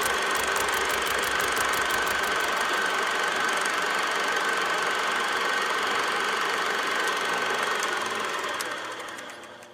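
A machine running steadily with a high, steady whine and a rapid ticking, fading out near the end.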